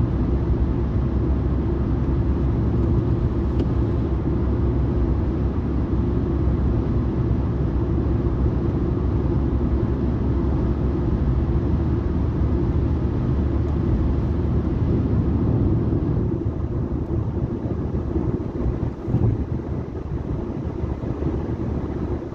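Car cabin noise while cruising on a highway: a steady low rumble of tyres and engine, easing off a little in the last few seconds.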